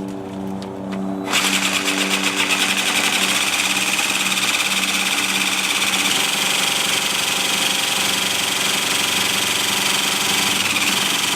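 Craftsman jigsaw running with a Bosch T130DG diamond tile blade. About a second in, the blade bites into the ceramic tile and turns into a loud, steady cutting noise, with the fast even chatter of the reciprocating blade.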